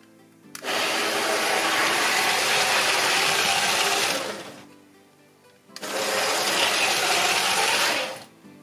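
Power Functions train motor of a brick-built steam locomotive whirring as it runs on plastic track, twice: about three and a half seconds, a pause, then about two and a half seconds. Each run starts and stops abruptly at a single speed, the only one the Mould King remote gives.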